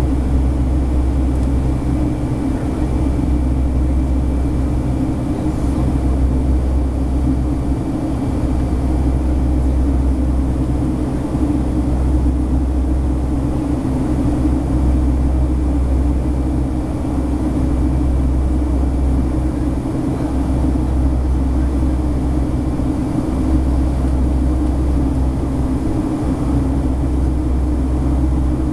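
Boeing 757-300 cabin noise in the climb after takeoff: a steady, loud, low rumble and rush of the jet engines and the air streaming past the fuselage, heard from a window seat beside the engine.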